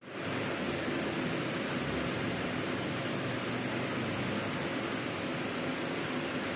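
Steady, even hiss, strongest in the high range, fading in at the very start.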